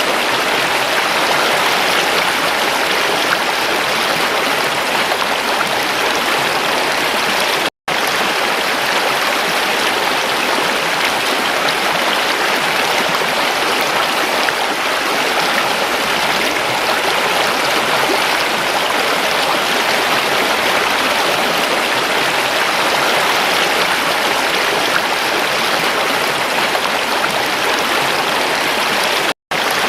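Stream water rushing and splashing steadily, with two momentary breaks to silence, about eight seconds in and again near the end.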